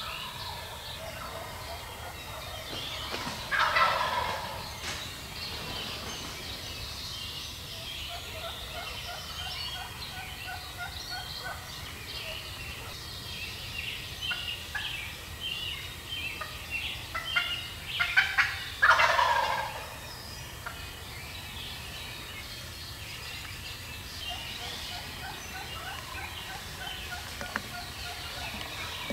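Wild turkey gobblers gobbling: one loud gobble about four seconds in and a louder cluster of gobbles about two thirds of the way through, with fainter, more distant gobbling in between. Small birds chirp in the background.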